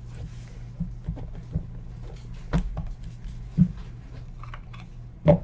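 Small boxes of trading cards being handled and set down on a desk: scattered light knocks, the loudest one near the end, over a steady low hum.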